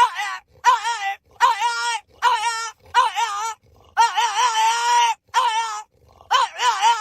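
A dog vocalizing in a run of about eight wavering, pitched whines or howls with short gaps between them, one longer call about four seconds in.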